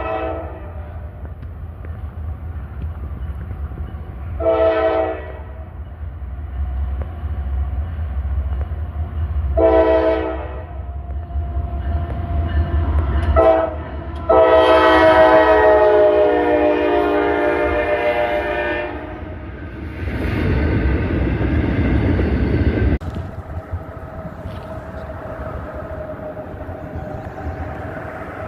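A Norfolk Southern diesel locomotive's multi-chime air horn sounding a horn show: two short blasts, a quick toot, then a long blast of about four and a half seconds, over the low rumble of the locomotive. Near the end a loud rushing noise lasts about three seconds and cuts off suddenly.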